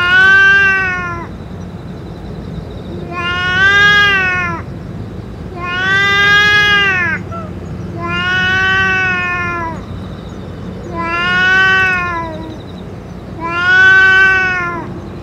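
A cat giving long, drawn-out yowls, six in all, about every two and a half seconds, each rising then falling in pitch: the warning calls of a stray cat in a close standoff with another cat.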